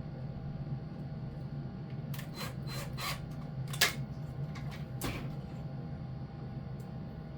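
Hand work with tools and parts during a fire alarm horn strobe installation: a few short scraping sounds, then a sharp click, then one more scrape, over a steady low hum.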